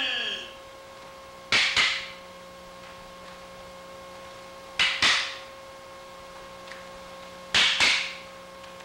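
Three sharp, quickly fading swishing strokes, each a quick pair, about three seconds apart, over a steady faint hum.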